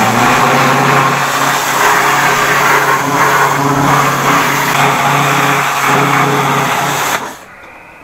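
Pressure washer running, its motor humming steadily under the hiss of water spraying against a washing-machine drum; it cuts off about seven seconds in.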